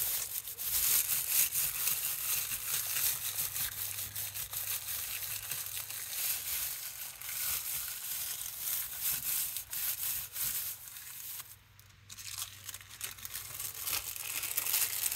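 Hand rubbing and smoothing thin white tissue paper over an inked gel printing plate, a continuous papery rustling and crinkling as the tissue is pressed onto the paint and botanicals to pull a print. It pauses briefly about three-quarters of the way through.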